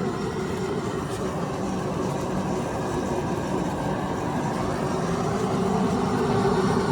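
Steady mechanical drone with a faint hum, even throughout with no distinct knocks or changes.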